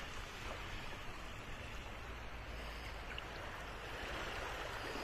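Calm sea water washing and lapping over a shallow, stony shore: a steady rush of water with faint ticks.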